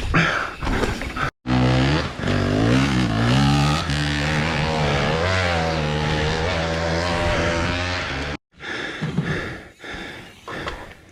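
Dirt bike engine revving, its pitch rising and falling repeatedly for about seven seconds. The sound cuts in abruptly a little over a second in and cuts off near the end, with rougher noise on either side.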